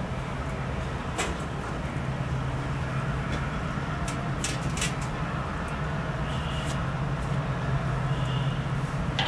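Sheet-metal clinks as a muffin tin is set onto the shelf of a Coleman camp oven about a second in, then the oven's metal door is shut with a few clicks near the middle. A steady low rumble runs underneath.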